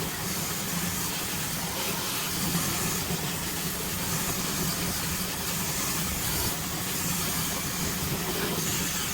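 High-speed hair dryer blowing steadily on its high fan and high heat setting: an even rushing of air with a constant low hum from the motor.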